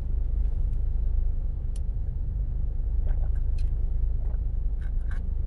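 Steady low rumble of a car engine idling, heard from inside the cabin, with a few faint clicks.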